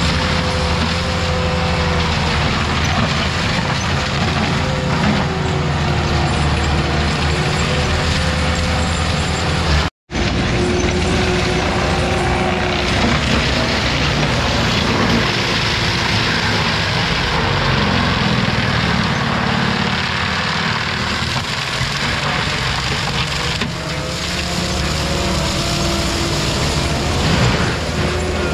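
Heavy equipment engine running steadily under working load, with a whine over it that wavers in pitch. The sound cuts out for a split second about ten seconds in, then carries on.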